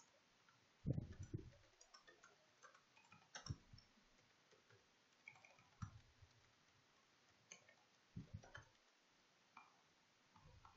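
Faint, slow computer keyboard typing: scattered, irregular key clicks, with a few heavier taps, the first about a second in.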